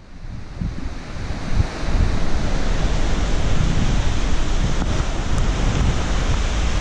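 Strong storm wind gusting, buffeting the microphone with a heavy low rumble over a steady rushing noise, building over the first two seconds.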